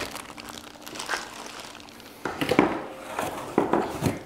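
Plastic packaging and cardboard crinkling and rustling as gaming-chair casters are handled and pulled from a small cardboard box. It comes as a series of uneven rustles, loudest about two and a half and three and a half seconds in.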